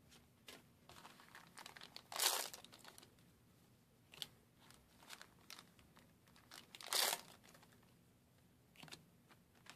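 Foil trading-card booster packs crinkling as they are handled and torn open, with two louder rips, one about two seconds in and another about seven seconds in, and light clicks of cards being handled in between.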